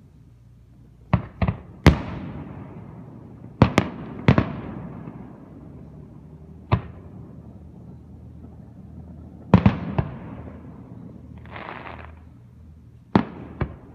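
Aerial firework shells bursting: about eleven sharp booms, several in quick pairs, each trailing off in an echoing rumble. A short hiss comes a little before the last pair of booms.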